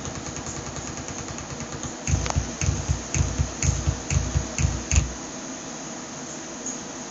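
Computer speakers making a fast, low stuttering buzz under a steady hiss. About two seconds in it breaks into a run of louder, irregular low pops and clicks, around three a second, which stops about five seconds in. The owner links this speaker fault noise to Ubuntu 10.10.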